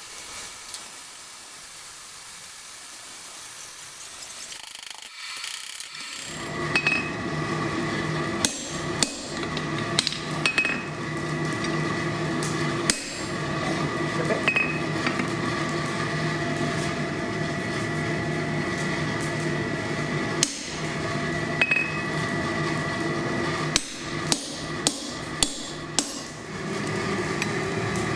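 Hand hammer blows on steel at the anvil while forging tongs. The strikes are spaced a second or two apart at first and come quicker near the end, over a steady droning hum. A steady hiss fills the first few seconds before the hammering starts.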